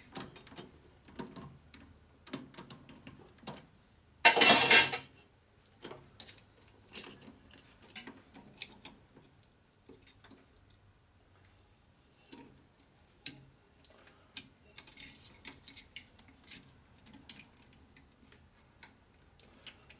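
Scattered light metal clicks and ticks of hand tools and small steel parts being worked at a lathe's four-jaw chuck, with the lathe not running. About four seconds in comes one louder burst of metal noise lasting under a second.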